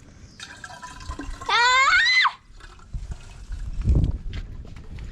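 Water pouring into a bottle, its pitch rising as the bottle fills, then cutting off suddenly. A low thump follows near the end.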